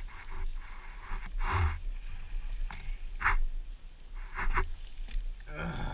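Four short, breathy rustling noises about a second apart, close by, as the dirt bike rider moves around his stopped bike; no engine is running.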